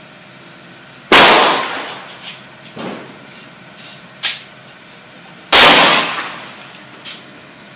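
Two .357 Magnum revolver shots from a 4-inch Taurus Model 66, about four and a half seconds apart, each with a long echoing tail. Softer sharp clicks and knocks come between the shots.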